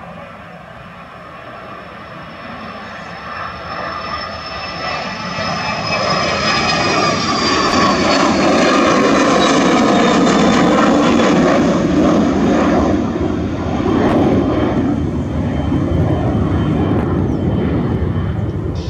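Bombardier Learjet 60 business jet's twin Pratt & Whitney Canada PW305A turbofans at climb power as it passes overhead and climbs away. A high whine slowly falls in pitch over the jet's steady noise, which grows to its loudest about halfway through and then eases off a little.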